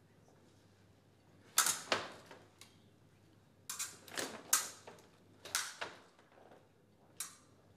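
Steel fencing sabres clashing blade on blade: sharp metallic clicks, each with a short ring. They come in quick bursts, two about a second and a half in, four around the four-second mark, two more a little later, and a single clash near the end.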